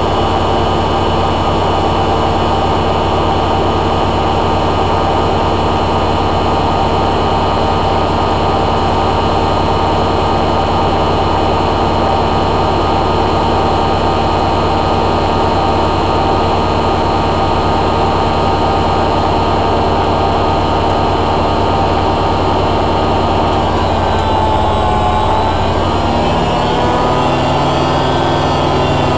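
Hoover A3786 Logic Deluxe washing machine on its final high-speed spin: a loud, steady motor and drum whine with a low hum. About 24 seconds in, the pitch dips and then climbs back up over a few seconds as the spin speed changes.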